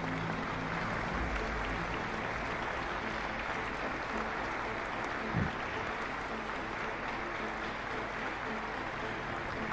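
Audience applauding steadily, with one brief low thump about five seconds in.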